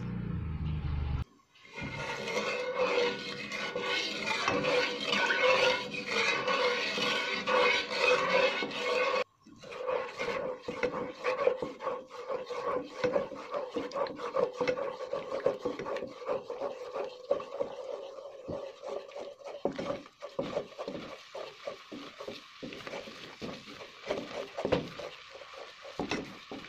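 Wooden spatula stirring and scraping thickening brown sugar syrup in a nonstick pot, with many short irregular scrapes and taps. A steady hum runs underneath through the first part and fades in the second half.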